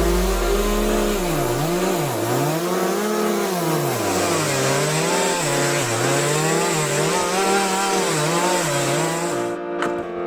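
Mini chainsaw cutting through wood, its pitch rising and falling over and over as the load on the chain changes. The cutting noise stops abruptly shortly before the end.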